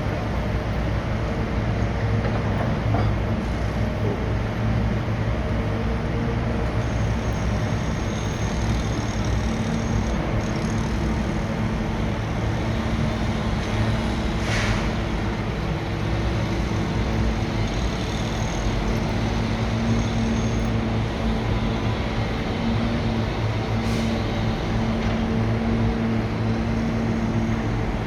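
A large engine running steadily, with a low hum that holds its pitch, and one short sharp knock about halfway through.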